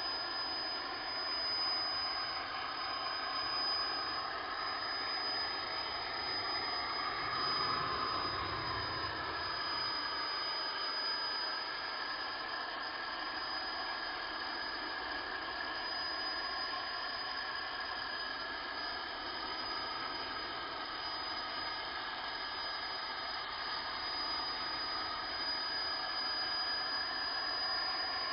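CNC router machine running steadily with a constant high whine and tones that shift slowly up and down; it swells briefly about seven to nine seconds in.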